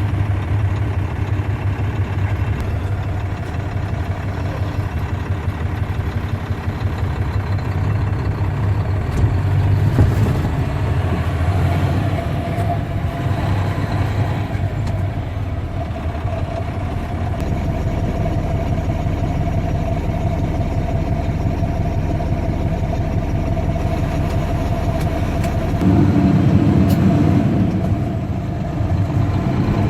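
Dump truck engine running with a steady low rumble. A thin steady whine joins it partway through, and it gets briefly louder near the end.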